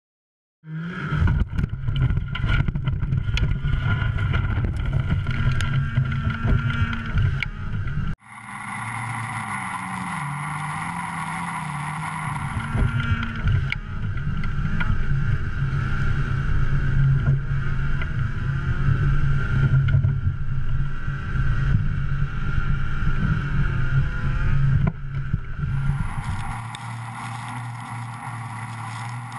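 Ski-Doo XP snowmobile engine running hard under load while towing a 600-pound fish hut over snow. The engine note wavers a little in pitch. It changes abruptly about 8 seconds in and again near the end, as the sound switches between cameras.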